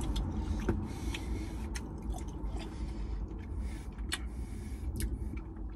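A man chewing a mouthful of beef with his mouth, making irregular wet clicks and smacks, over a low steady rumble.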